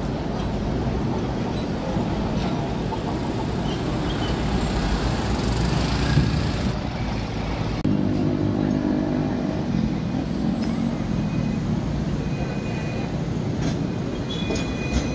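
Street traffic noise with the rumble of a passing Hong Kong double-decker tram. Near the end a high squeal of the tram's steel wheels on the rails begins.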